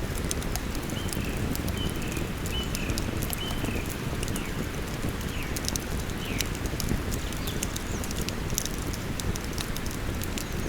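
Campfire crackling with frequent sharp pops over the steady rush of a flowing river. A bird gives a series of short, high chirps during the first several seconds.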